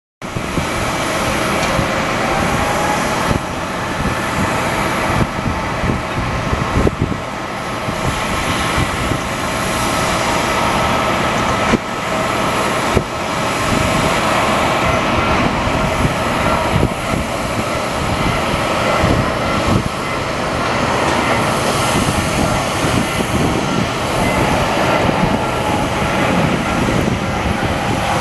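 Jet airliner engines, loud and steady, with a faint whining tone over a dense rushing noise.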